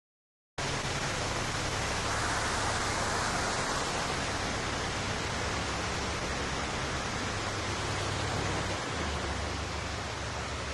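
Steady rush of water pouring through a canal lock, with a low steady hum beneath it. It starts abruptly about half a second in.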